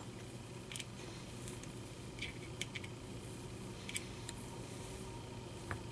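A hand chamfering tool being turned in the primer pocket of a brass .38 case to chamfer away the military primer crimp: a few faint, scattered metal scrapes and ticks over a low steady hum.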